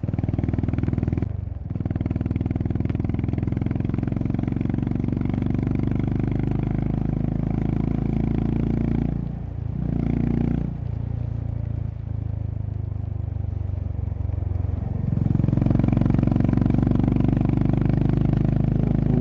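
Honda CB350RS's single-cylinder engine running as the motorcycle rides on, its note dropping away briefly about a second and a half in and again about halfway through, then running louder for the last few seconds.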